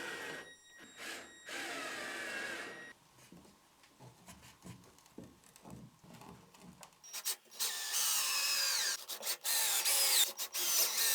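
Drill driver driving screws into plywood: a short run about two seconds in, then longer runs in the second half, the motor's whine falling in pitch as each screw tightens. Light handling knocks in between.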